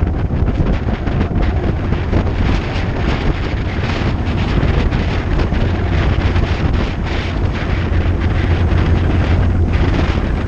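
Heavy wind buffeting on a GoPro action camera's microphone as a bicycle descends a long hill at speed: a loud, steady low rumble with rushing hiss.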